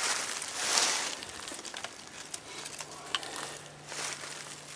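Dry tinder of beech leaves, broom sedge and fatwood shavings rustling and crackling as hands rearrange it, loudest about a second in and quieter afterwards.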